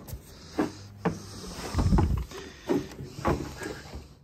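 A Gloucestershire Old Spot boar walking through deep mud, making several short, low grunts among squelching steps, the loudest about two seconds in.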